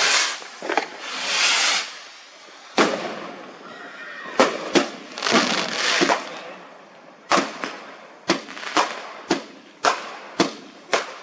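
Fireworks going off: hissing swells, then a run of sharp bangs with short echoing tails, coming about every half second in the second half.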